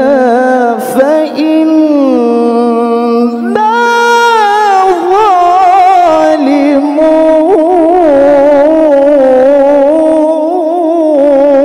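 Male qari reciting the Quran in the melodic mujawwad style into a handheld microphone: one long sung phrase of held, wavering ornamented notes. About three and a half seconds in the voice climbs to a higher pitch and holds it there.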